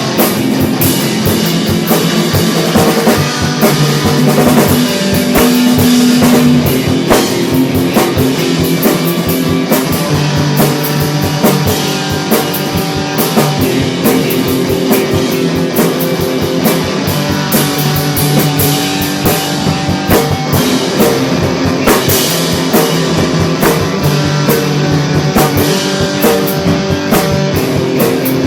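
Rock music played on drum kit and guitar, with a steady beat.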